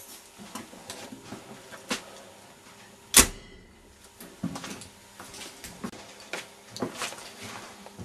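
Door of a 1950s Eisfink refrigerator shut with one loud bang about three seconds in, among light handling clicks and rustles.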